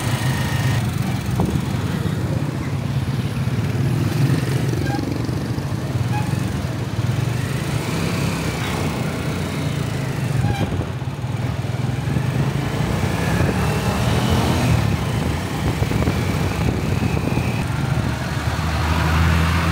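Motorcycle engine of a Philippine tricycle running steadily under way, heard by a rider in it, with road noise over it. The engine note drops lower near the end.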